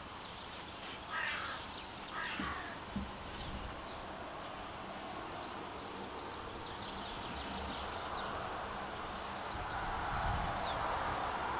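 Small birds chirping, with two harsh crow caws about one and two and a half seconds in. A steady rushing noise, like wind, grows from about eight seconds in.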